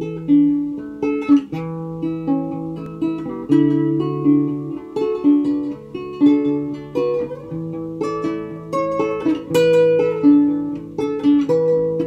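Intro music on a plucked guitar: a melody of picked notes over lower held notes, with a sharp attack on each pluck.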